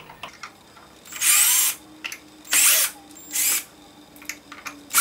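Cordless drill/driver with a Phillips bit spinning in three short bursts, backing out the screws that hold the gearbox bearings. Each burst whirs up and down in pitch.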